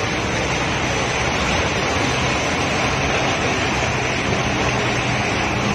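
Floodwater rushing and churning along the side of a bus as it wades through a flooded street, a loud steady wash, with the bus's engine running low underneath.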